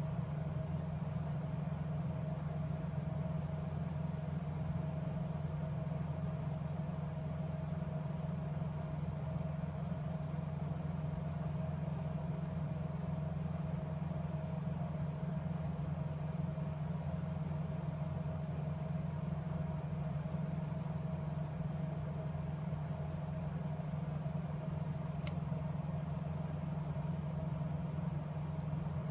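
Steady low machine hum with a constant higher tone above it, unchanging throughout, and a single sharp click about 25 seconds in.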